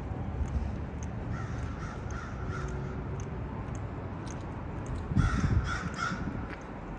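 Crows cawing in two short series of harsh calls, the second, about five seconds in, louder than the first.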